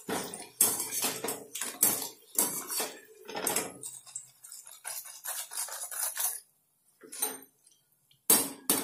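A wire spider strainer clinks and scrapes against a stainless steel kadai as fried brinjal slices are scooped out of the oil. There are several knocks a second at first. They thin out and it goes nearly quiet, then a sharp knock comes near the end.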